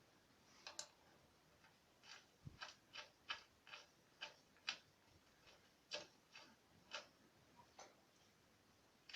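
Faint, sharp clicks and light taps at uneven intervals, a dozen or so over several seconds, with one low thud about two and a half seconds in.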